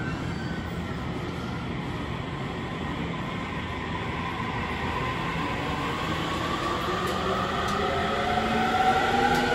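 Electric commuter train pulling out of a station platform. The wheels rumble on the rails throughout, and from about halfway in the traction motors' whine rises steadily in pitch as the train accelerates.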